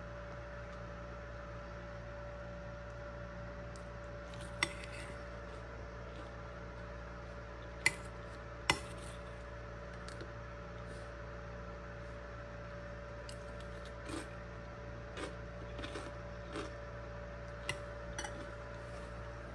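A few sharp clinks and knocks of kitchenware being handled over a steady hum. The loudest clinks come about halfway through, two of them close together.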